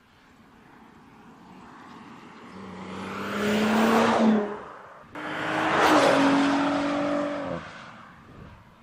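Audi S5 Coupe's turbocharged V6, heard from inside the cabin, pulling hard under acceleration. The engine note builds, breaks briefly at a gear change about four seconds in, builds again, and falls away as the throttle is lifted near the end.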